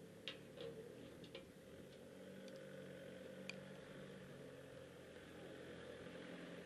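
Faint steady motor hum, with a few light ticks in the first few seconds.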